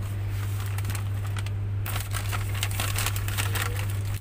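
A steady low hum with crackling, rustling clicks over it that grow denser from about two seconds in.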